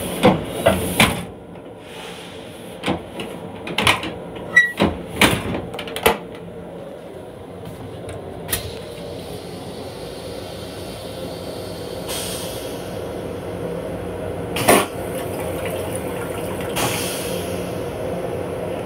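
A run of sharp knocks and clatters through the first six seconds, then the steady hum and rumble of a moving M7 commuter railcar heard inside its small restroom, with one more knock about fifteen seconds in.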